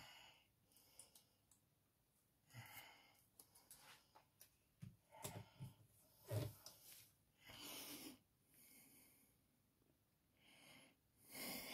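Faint, scattered rustles of paper cards and die-cuts being handled on a desk, with a few soft bumps about five to six seconds in.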